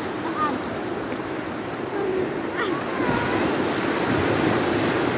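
Sea surf washing onto the shore in a steady rush, with wind on the microphone.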